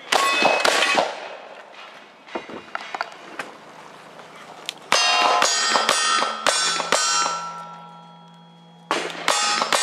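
Cowboy action shooting: lever-action rifle shots at the start, each answered by steel plate targets ringing. After a few seconds of lighter clicks, a fast string of gunshots about five seconds in sets the steel plates ringing, the ring fading slowly, and another quick string of shots starts near the end.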